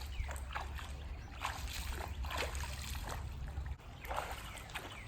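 Water splashing and sloshing in a shallow stream as a person wades through it, in a run of short, uneven splashes over a steady low rumble.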